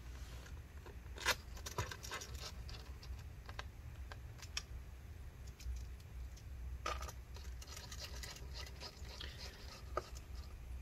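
Faint scattered clicks and scratches of hands handling and pressing on a laptop's bottom cover, over a low steady hum.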